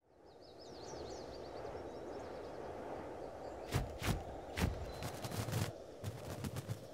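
Forest ambience fading in: a steady low background noise with a small bird twittering high in the first couple of seconds, then a run of sharp cracks and snaps from about halfway through.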